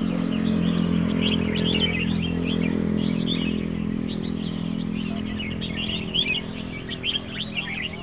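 Many caged songbirds chirping and singing at once in short, overlapping phrases. Under them a vehicle engine hums steadily, loudest at the start and slowly fading.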